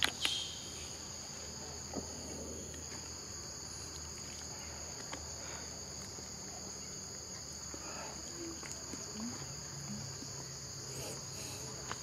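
Steady high-pitched drone of forest insects, two even tones held without a break, with a few faint, soft sounds underneath.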